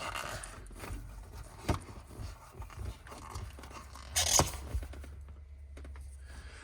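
A split gear lever boot being ripped apart by hand, with scraping and handling noises and one loud tearing burst about four seconds in.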